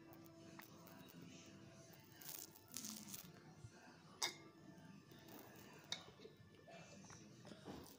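A child drinking from a small plastic Actimel bottle held close to the microphone: faint sips and plastic crinkling, with a sharp click a little after four seconds in and another near six.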